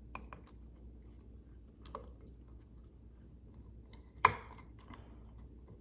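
A few faint handling clicks and one sharp metallic click about four seconds in, from the side cover of a vintage Necchi BF Mira sewing machine being pulled at and knocked against the machine, not yet coming free because its screw is not loose enough.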